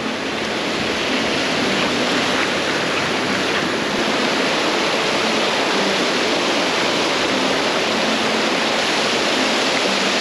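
Shallow river water rushing steadily over a low concrete weir and rocky rapids, getting a little louder in the first second.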